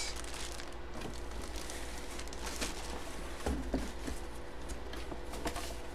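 Quiet handling noises as a boxed item is moved about on a table: faint rustling and a couple of soft knocks a little past the middle, over a low steady hum.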